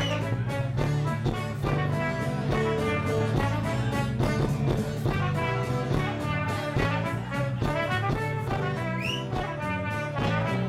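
Live band playing an instrumental passage of a mazurka, a brass horn leading over bass and a steady drum beat.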